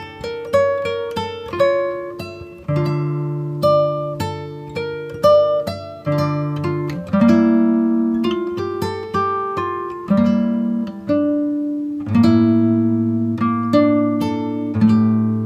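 Background music: a plucked acoustic guitar playing a gentle melody over sustained chords, each note ringing and fading.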